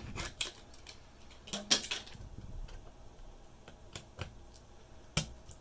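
A handful of sharp, separate clicks and light taps from hands handling the open Intel NUC and its laptop memory module.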